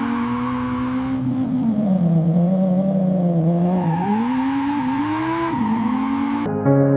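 1974 Dodge Monaco's 440 V8 running at high revs. Its pitch drops about two seconds in and climbs again near the middle, as the car is driven and revved.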